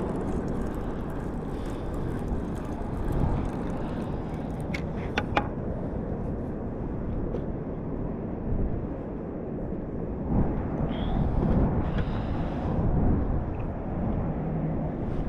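Steady low outdoor rumble of wind and surf, with a few sharp clicks about five seconds in.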